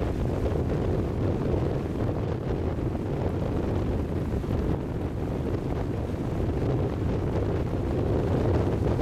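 Wind buffeting the microphone with a steady low rumble, over the wash of small waves lapping onto a sandy shore.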